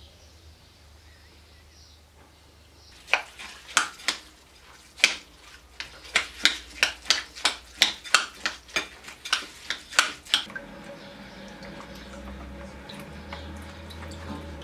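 Metal spoon mixing rice stuffing in a glass bowl, clinking against the glass in a quick run of sharp knocks, about three a second, for some seven seconds. After the clinking stops a fainter, steadier sound with a low hum remains.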